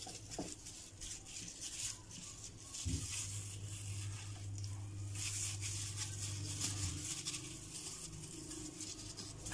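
Chicken pieces being rubbed with thick yogurt marinade by a hand in a plastic glove: soft, irregular wet squishing and rubbing, over a steady low hum.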